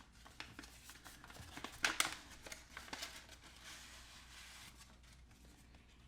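Packaging being unwrapped by hand: faint crinkling and rustling of wrapping with scattered light clicks, a sharper crackle about two seconds in.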